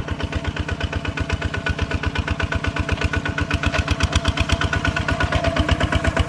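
Tractor engine running steadily with an even, fast chugging beat, getting a little louder near the end.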